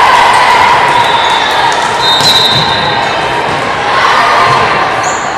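Volleyball rally on a hardwood gym court: sharp hits of the ball and high sneaker squeaks over a steady din of players' and spectators' voices.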